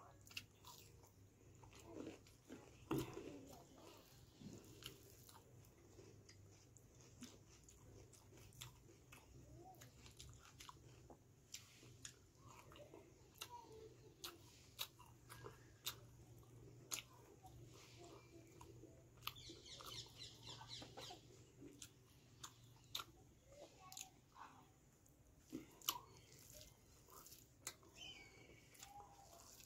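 Faint eating sounds: chewing and sharp wet mouth clicks as rice and chicken curry are eaten by hand. A short burst of high, quick chirping comes about two-thirds of the way through.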